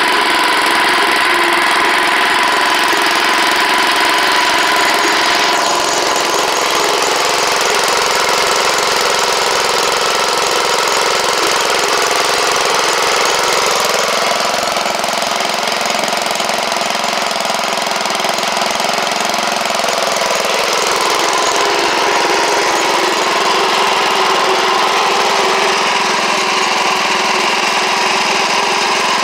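Vintage Wheel Horse garden tractor's small engine running steadily as the tractor is driven, its note shifting partway through and then settling back.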